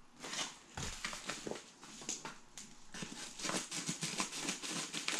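Scissors cutting open a paper mailer envelope, with irregular crisp snips and paper crackling.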